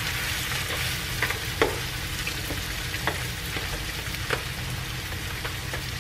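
Chicken thighs frying in hot grapeseed oil in a skillet, a steady sizzle. A few sharp clicks of metal tongs against the pan come through it as the last pieces are placed.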